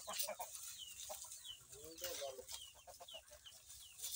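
Aseel chickens clucking, with short high falling chirps repeating throughout and a lower bending call about two seconds in.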